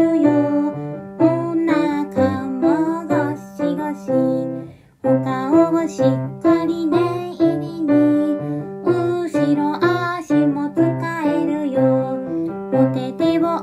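A children's exercise song: a woman singing over piano and electric keyboard accompaniment with a steady bass beat. The music breaks off briefly about five seconds in, then resumes.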